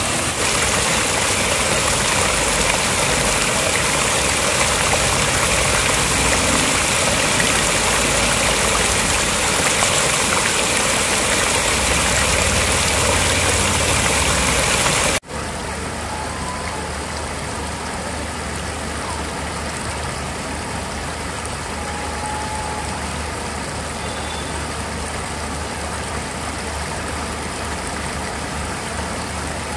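Floodwater pouring over a low concrete weir: a loud, steady rush of falling and churning water. About halfway through it cuts to a quieter, duller rush of the same water.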